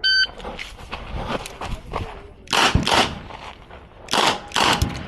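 A shot timer's start beep, then a string of rapid shots from a Smith & Wesson 929 9mm competition revolver. The two loudest shots come about two and a half and four seconds in, with sharper cracks between them.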